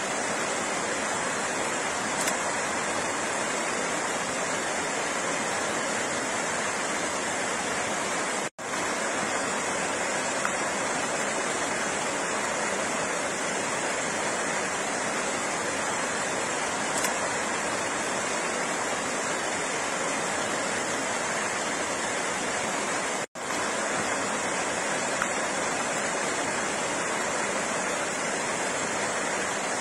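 Flowing water, a steady, even rush of noise with no pauses in its flow, cut off for an instant twice, about a third and three quarters of the way through.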